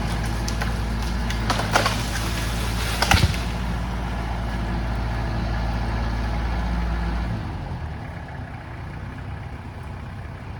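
An engine running steadily at idle, with a few sharp knocks about two and three seconds in; the engine noise drops away about seven seconds in, leaving a quieter steady background.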